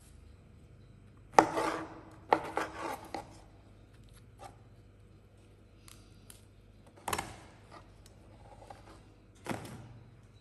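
Kitchen knife cutting oyster mushrooms on a plastic cutting board: a handful of separate crisp cuts and knocks against the board, spaced a few seconds apart, with soft handling of the mushrooms between them.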